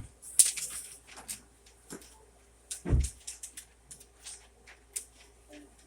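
Scattered handling and movement noise: short clicks, rustles and knocks, one sharp one just under half a second in and a heavier low thump about three seconds in.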